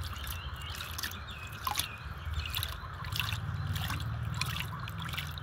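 Water dripping and trickling into a plastic basin as a hand scoops it up and lets it run back over a small animal being bathed, in small irregular splashes.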